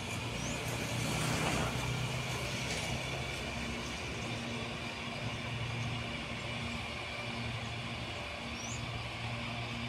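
CPTM Series 8000 electric multiple unit passing slowly at close range: a steady low hum over an even rolling noise, swelling briefly about a second in.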